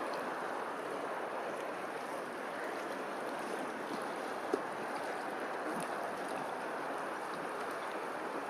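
River water rushing steadily, with one brief knock about halfway through.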